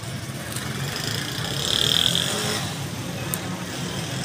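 Steady background traffic noise with a low engine hum. A brief high-pitched tone sounds about two seconds in.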